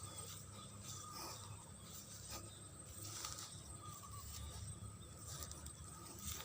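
Faint outdoor background: a low rumble with a soft hiss and a few scattered light rustles.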